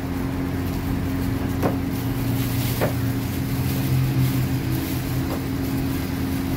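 Steady electrical hum of kitchen machinery, with a deeper drone swelling between about two and five seconds in, and a couple of faint taps.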